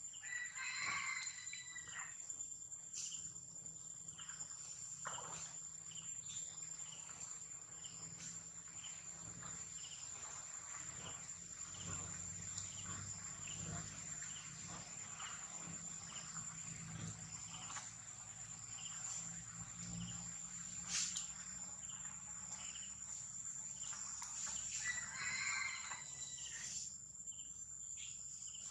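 Steady high-pitched insect drone running throughout, with short calls of some other animal twice, about a second in and again near the end.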